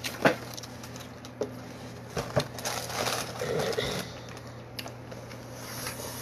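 Scattered light clicks, taps and rustles of things being handled on a table, over a steady low background hum.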